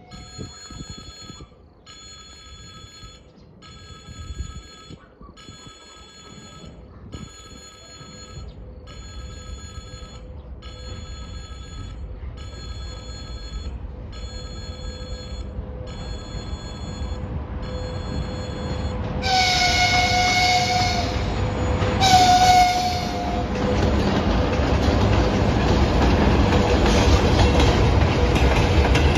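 Level-crossing warning bell ringing in even pulses, a little over one a second. About two-thirds through, a VL80S electric locomotive sounds its horn twice, a longer blast then a shorter one. After that the rumble of the locomotive and its freight train grows steadily louder as it draws near and passes.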